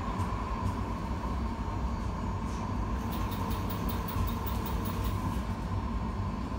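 Interior running noise of a light-rail tram car under way: a steady low rumble with a steady whine, and a run of faint light clicks and rattles around the middle.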